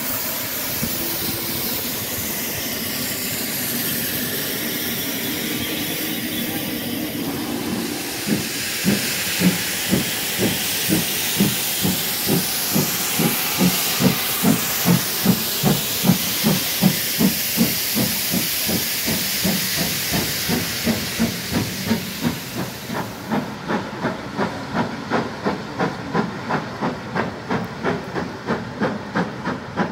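GWR tank steam locomotive hissing steam while standing, then starting away with regular exhaust chuffs at about two a second. Near the end the chuffs come quicker and fainter as the train pulls into the distance.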